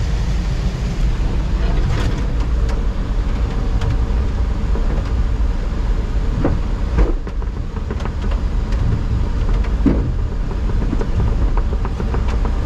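Daihatsu Japanese mini pickup driving slowly over a rough, wet trail, heard from inside the cab: a steady engine and road rumble with a few short knocks and rattles.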